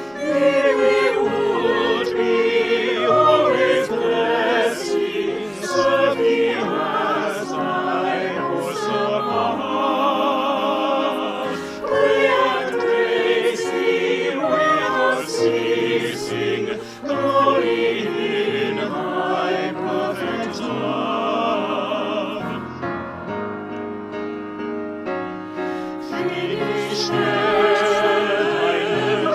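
A small choir of men's and women's voices singing a hymn together in several parts, accompanied by grand piano.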